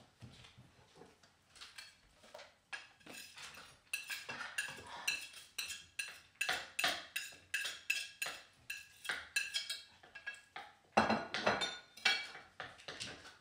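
Kitchen clatter of a knife, a plate and utensils: a string of quick clinks and chops, a few a second, starting about four seconds in, with a louder cluster near the end.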